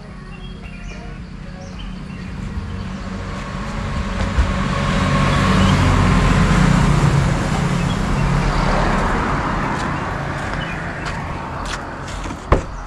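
A vehicle passing on the road: engine and tyre noise swell to a peak about halfway through, then fade away. Near the end comes one sharp click as the car's door is opened.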